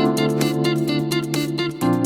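Background music: a bright instrumental track with plucked notes over sustained chords, the chord changing near the end.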